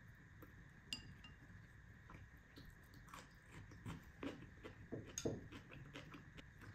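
Quiet eating sounds: wooden chopsticks clicking against a ceramic rice bowl, with a light clink about a second in and scattered small clicks after, along with soft chewing.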